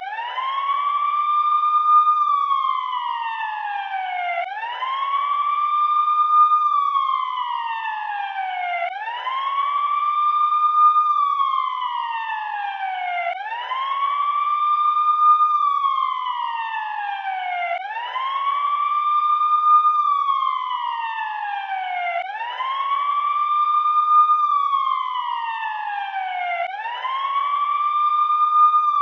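Special-services vehicle siren wailing: the pitch climbs quickly, holds briefly, then slides slowly back down, over and over about every four and a half seconds.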